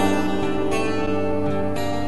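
Instrumental passage of a pop-rock song, with guitar over steady held chords and no singing.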